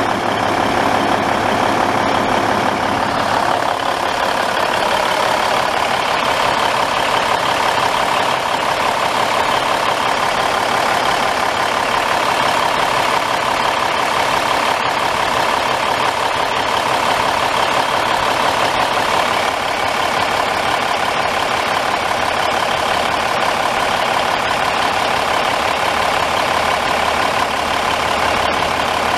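Cummins N14 14-litre inline-six turbo diesel in a 1998 Freightliner FLD120 semi truck, idling steadily. A low hum in the sound drops out about three and a half seconds in.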